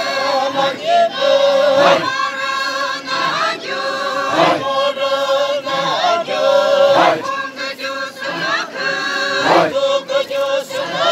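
Group of dancers chanting a traditional song in unison, in repeated phrases of held notes, with a sharp accent about every two and a half seconds.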